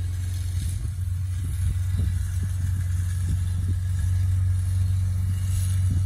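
Can-Am Commander side-by-side running as it drives along the road, a steady low rumble.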